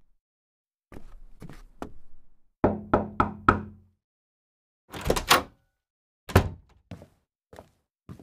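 Knocking on a door, added as a sound effect: three soft knocks, then four loud, evenly spaced knocks. A longer clatter and a single thud follow, then light, spaced footsteps near the end.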